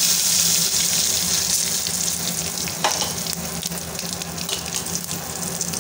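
Dried red chillies, cumin seeds and bay leaves sizzling in hot mustard oil in a wok, a steady hiss that slowly dies down, with fine crackling and one sharp pop about three seconds in.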